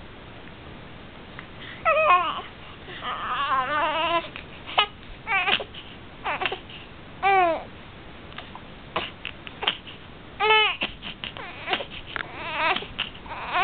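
A baby with the hiccups giving short, high-pitched cries and babbling sounds, about nine in all with pauses between, some falling in pitch and one wavering, mixed with a few brief sharp sounds.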